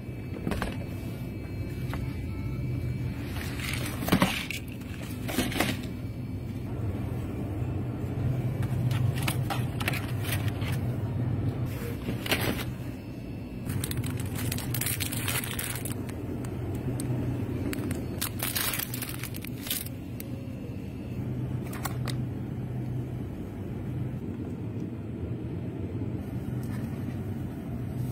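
Steady low hum of a convenience store, with scattered rustles and knocks from packaged food being handled and put into a plastic shopping basket.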